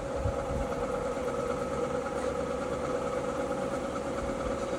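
Electric buffer (paint polisher) running steadily with an even motor whine.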